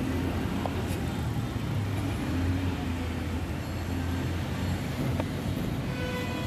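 Steady low rumble of street traffic, with a motor vehicle's engine running close by.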